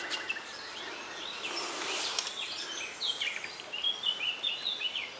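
Small birds chirping and twittering in quick short notes, thickest in the second half, over a steady outdoor background hiss, with a brief louder rush of noise about two seconds in.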